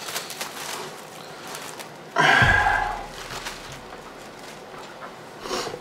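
Plastic cling wrap crinkling as it is pulled and stretched over a metal baking tray, with one louder tearing burst about two seconds in and a shorter one near the end.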